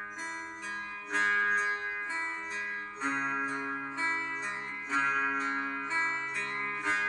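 Background music on a plucked string instrument, zither- or guitar-like, with notes that ring on and a fresh pluck or chord about once a second.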